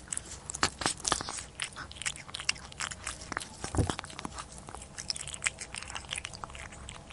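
Close-miked crunchy chewing and biting: a rapid, irregular run of sharp crunches over a steady low hum.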